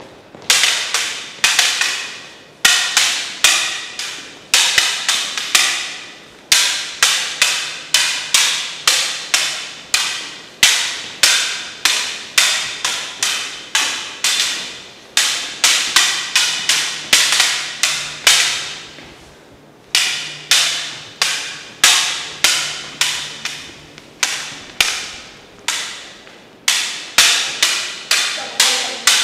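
Plastic LED lightsaber blades clacking together in fast flurries of hits, about three a second, with short pauses between exchanges; each hit rings briefly.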